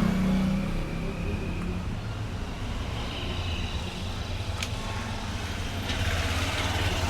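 Steady low rumble of background road traffic, with a single sharp click about two-thirds of the way through.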